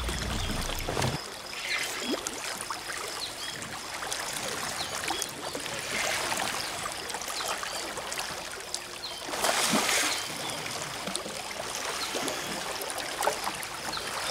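River current rushing and lapping around a drift boat, with a louder burst of splashing about ten seconds in.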